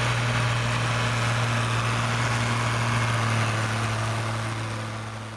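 Diesel engine of heavy farm machinery running steadily at constant speed, with a strong low hum and broad mechanical noise, fading out near the end.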